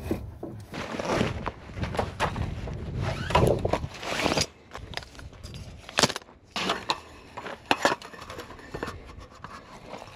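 Folding roll-up slat camp table being handled: a rustling scrape as it slides out of its fabric carry bag, then a few sharp clicks and clacks as the metal frame is opened and the slatted top is unrolled.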